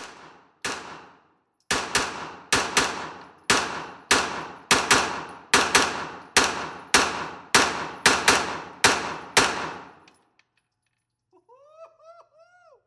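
A string of about fifteen gunshots fired at an uneven pace, roughly two a second, each with an echoing tail in an enclosed range, stopping about ten seconds in. A few faint high chirps follow near the end.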